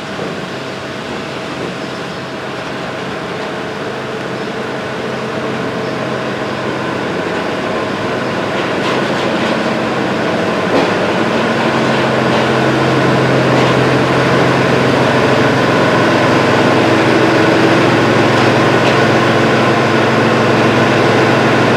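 Diesel shunting locomotive built by Đuro Đaković, its engine running steadily and growing louder as the locomotive approaches and draws up close, with a few short clicks about halfway through.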